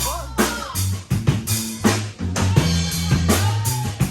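Live band music: a drum kit playing a steady beat, about two hits a second, over a bass line.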